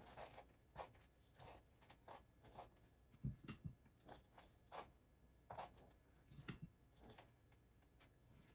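Faint scraping and crumbly rustling strokes of a spatula scooping chopped almonds and coconut flakes and pressing them onto the cream-covered side of a cake, with a few soft low knocks, the loudest about three seconds in.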